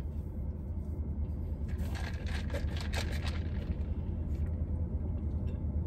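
Low steady rumble inside a car cabin, with a few brief soft noises about two to three seconds in.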